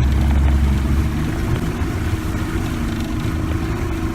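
Motorboat engine running under way, its heavy low drone dropping to a lighter, steadier note about a second in as the boat slows.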